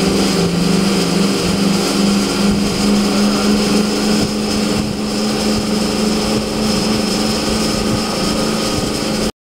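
Twin Mercury Racing QC4v 1100 twin-turbo sterndrive engines of a Cigarette 42X powerboat running at speed, a loud steady drone over wind and water rush. The engine pitch steps up about a second in and then holds, and the sound cuts off suddenly near the end.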